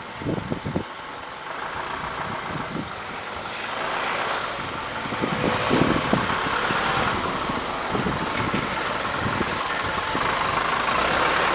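Vehicle noise, a steady hiss and rumble that grows louder through the first half and then holds.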